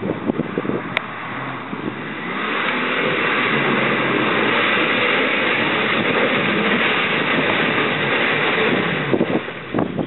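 Lifted Jeep Wrangler TJ on 33-inch mud tires revving hard as it churns through a mud bog, its engine and splashing mud building about two seconds in and holding until near the end. Wind buffets the microphone before and after.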